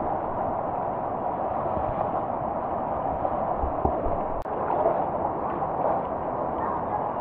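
River water rushing steadily through a narrow rock channel, a constant noise of strong current.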